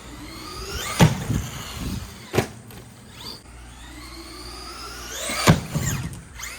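Traxxas Stampede RC truck's electric motor whining up in pitch as it accelerates, twice, each run ending in a sharp hard hit as the truck strikes the ramp or lands, about a second in and about five and a half seconds in, with another knock near two and a half seconds.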